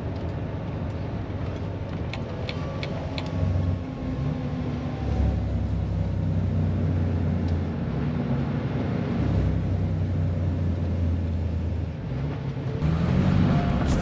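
Heavy truck's diesel engine and road noise heard inside the cab while driving, the engine note swelling and easing several times. A few light clicks about two to three seconds in.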